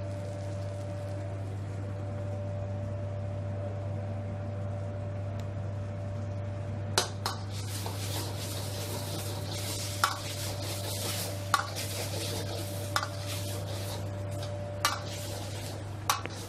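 A ladle stirring vegetables in a wok: sharp metal clanks of ladle on wok, six of them from about seven seconds in, over the sizzle of food frying and a steady low hum.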